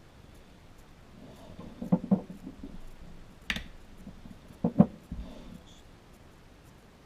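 Handling sounds from fitting a replacement pre-filter: a few sharp knocks and clicks, in clusters about two seconds in, at three and a half seconds, and just under five seconds in, the last the loudest.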